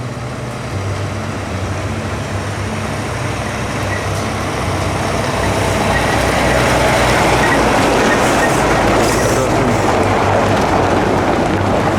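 Transport truck's diesel engine running as the truck pulls in, a steady low hum with road and mechanical noise that grows louder over about six seconds and then holds steady.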